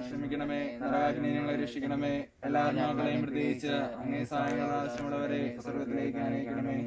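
A man singing a slow devotional chant between decades of a Malayalam rosary, holding long notes, with a short break about two seconds in.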